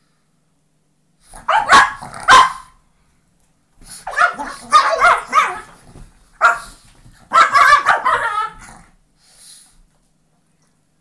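Brussels Griffons play-fighting, barking in four loud bursts: two sharp barks a little over a second in, then longer runs of barking.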